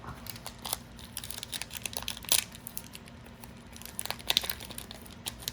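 Foil trading-card booster pack wrapper crinkling and being torn open, in two bouts of crackling: a long one in the first half and a short one about four seconds in.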